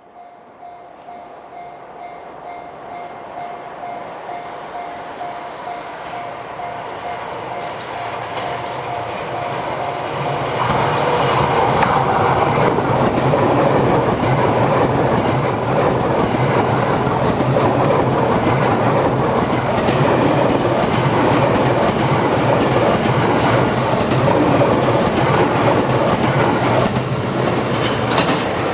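Level crossing alarm sounding a steady tone as a diesel railcar train (the Twilight Express Mizukaze) approaches. The rumble grows louder over the first ten seconds or so, then the train passes close by: wheels clack over the rail joints and the engines hum, drowning the alarm.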